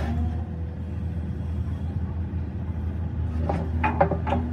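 Tata Hitachi excavator's diesel engine running steadily with a low rumble, its bucket working against the gravel. A few short, sharp knocks come close together near the end.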